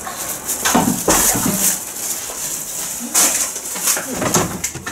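Rustling and knocking from handling, in short bursts, with a few brief low vocal sounds mixed in.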